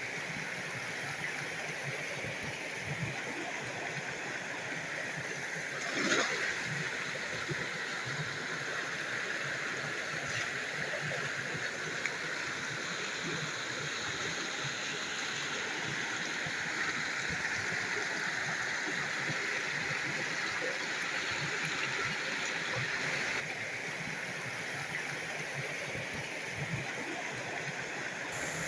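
Steady rushing of a small stream flowing over rocks, with a brief sharper sound about six seconds in.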